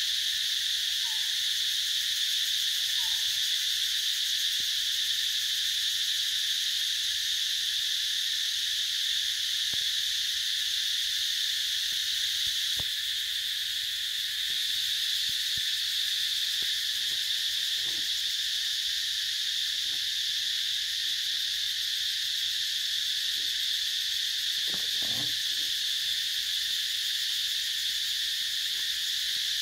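Steady, loud chorus of forest insects: an even high-pitched drone that never lets up. Two short faint chirps sound in the first few seconds.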